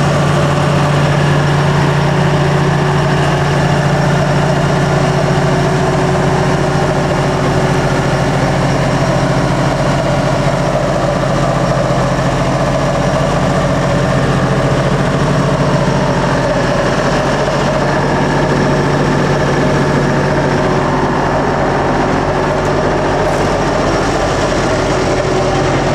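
Diesel engine of a 1979 Bantam C-366 excavator idling steadily, a constant low hum with no change in speed.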